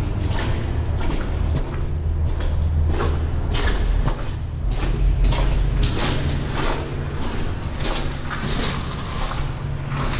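Boots wading through shallow creek water inside a tunnel: about two sloshing steps a second, echoing off the walls, over a steady low rumble.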